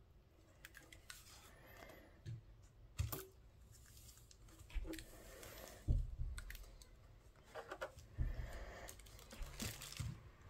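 Handling noise from plastic desktop speakers: light clicks and rustling, with several knocks and thuds as the speakers are moved and set down on a table, the loudest about six seconds in.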